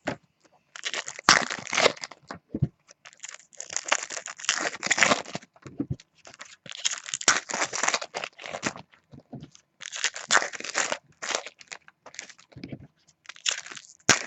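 2014 Topps Chrome Baseball trading card pack wrappers being torn open and crinkled, in irregular bursts with short pauses between them.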